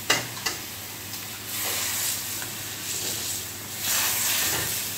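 Egg and seafood sizzling in sauce in a hot wok, the hiss swelling twice as a metal spatula and ladle stir through it. A couple of sharp knocks come right at the start.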